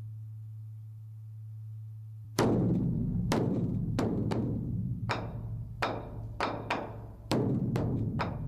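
Korean Buddhist temple percussion instrument struck hard and repeatedly with sticks in an irregular rhythm, each stroke ringing on low. The strokes begin suddenly about two seconds in, cutting across a steady low hum.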